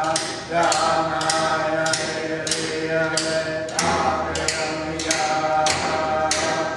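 Inupiaq drum song: several large frame drums struck together in a steady beat, about two strikes a second, with a group of voices singing along.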